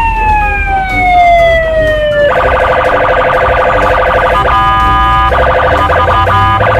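Electronic police siren: a long, slowly falling wail, then from about two seconds in a rapid warbling pulse, broken briefly by steady held tones about five seconds in.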